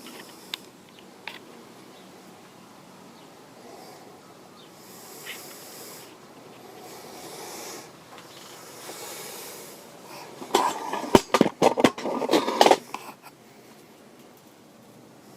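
Spot welder firing a weld into the car's sheet-steel body panel: a buzzing crackle lasting about two seconds, about two-thirds of the way through, with faint handling hiss and small clicks before it.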